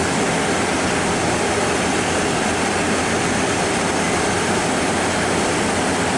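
Diesel multiple unit (DR2900 and DR3000 cars) standing at the platform with its underfloor diesel engines idling: a loud, steady running noise with a constant low hum.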